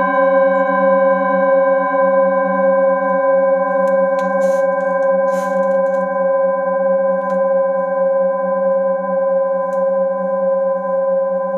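Several metal singing bowls ringing on together after being struck with a mallet: a steady chord of sustained tones with slow wavering beats. A couple of faint rustles and clicks come about four to six seconds in.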